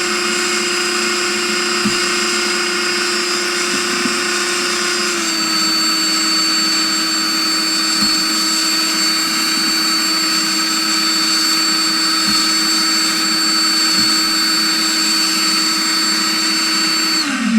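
Two brushless drone motors spinning the flywheels of a Nerf-style dart launcher, a loud steady high whine. Its pitch drops slightly about five seconds in, a few faint ticks sound over it, and it winds down and stops near the end.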